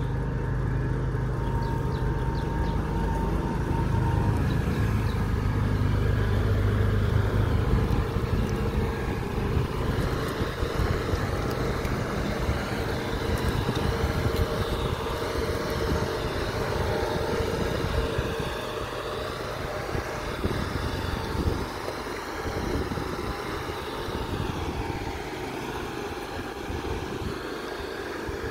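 Engine of a Stryda 600S amphibious boat running steadily as the boat drives on its own wheels over land. It is a little quieter after about 18 seconds.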